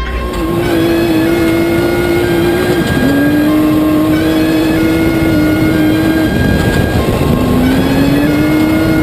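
Off-road race car's engine at high revs, heard from inside the cockpit over dirt and tyre noise. The engine note drops sharply about three seconds in and again about six seconds in, as with gear changes or lifting off, and climbs back up each time.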